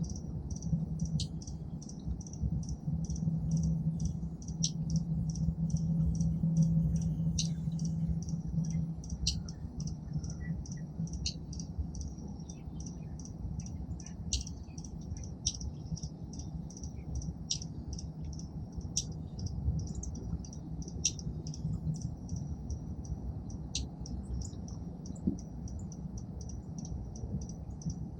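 Small songbirds at a feeder giving short, high chip notes, repeated several times a second. A low background hum fades out about nine seconds in.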